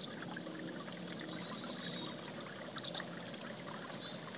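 Songbirds chirping in short, high, rapidly repeated notes. The loudest group comes about three seconds in, and a longer run of quick repeated notes starts near the end. Underneath runs a steady low rushing noise.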